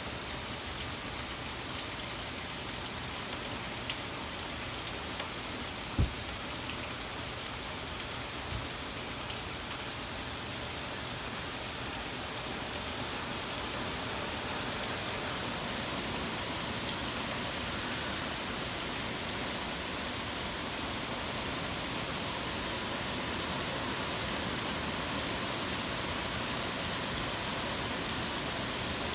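Heavy rain falling steadily in a thunderstorm, a constant hiss that grows a little louder about halfway through. A brief low thump about six seconds in.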